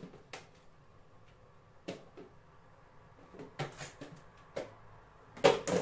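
A few scattered knocks and clatters as kitchen items are handled and set down on a counter, the loudest pair near the end.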